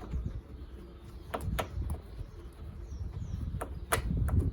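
Low rumble with a few sharp clicks and taps, and faint short bird chirps.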